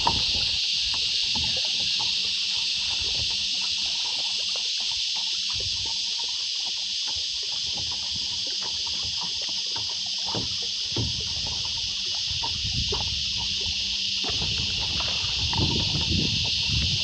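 A steady high-pitched drone of insects over the water, with scattered light knocks and water sounds from handling on a kayak, busier near the end.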